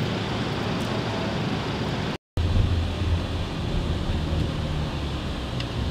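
A vehicle driving, with steady engine and road noise and some wind. The sound cuts out completely for a moment about two seconds in, and after the gap a low engine drone is stronger.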